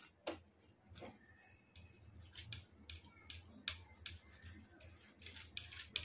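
Homemade mawa (khoya) being grated on a flat stainless steel hand grater resting on a steel plate: faint, quick scraping strokes, about two a second.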